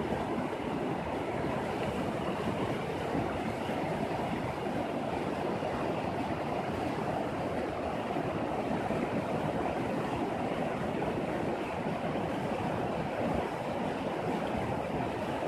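Shallow mountain river rushing over a rocky bed: a steady, even rush of flowing water.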